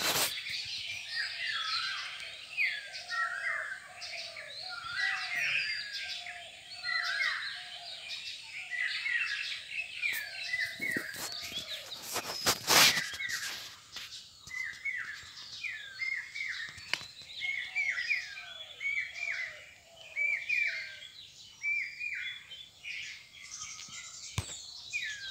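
Several small birds chirping steadily, short quick notes repeated over and over, with a lower repeated call in the first half. A few sharp knocks break in, the loudest about halfway through.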